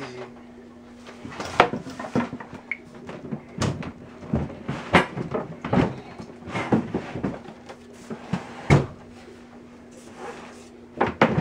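Irregular knocks, bumps and scrapes of studio monitor speakers being handled and shifted on a wooden desk, with the desk itself being gripped and moved. A few sharper knocks stand out among the lighter handling noise.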